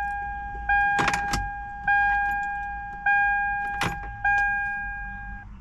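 3rd-gen Toyota 4Runner dashboard warning chime ringing over and over, one fading ding a little more than once a second, with keys rattling in the ignition about a second in and again near the end.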